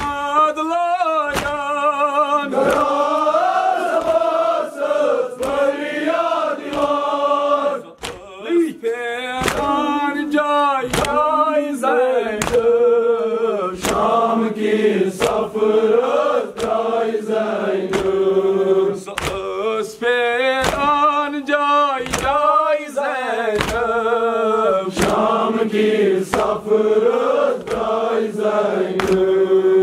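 Shia mourners chanting a Kashmiri-language noha (Muharram elegy) in long, wavering lines. Sharp chest-beating slaps (matam) keep a steady beat about once a second under the singing.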